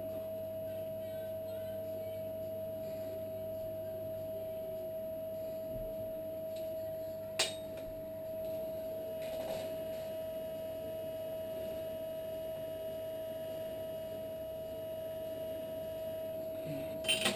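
A steady, high-pitched electrical whine. About seven seconds in there is one sharp metallic clink as a steel dental instrument is set on the instrument tray, and a couple of clicks come near the end.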